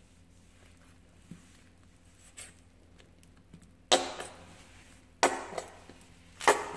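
Plastic squeeze bottle of fluorescent paint being squeezed: three sharp sputtering squirts, each starting suddenly and fading within about half a second.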